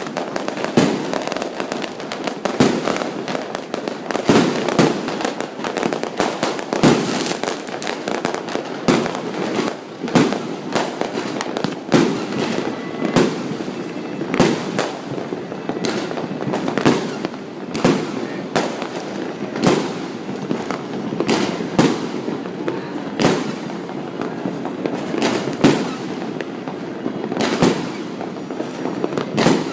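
Fireworks going off repeatedly: sharp bangs about every second or two over a continuous background din.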